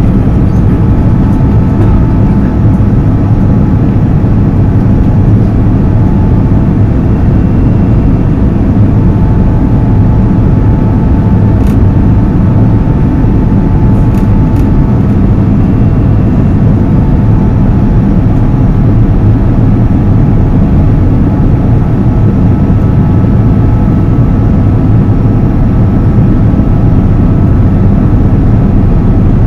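Steady cabin noise of an Airbus A330-200 airliner on its landing approach, heard from a seat by the wing: its Rolls-Royce Trent 700 turbofan engines running and the rush of air over the fuselage, with a faint steady whine above the low noise.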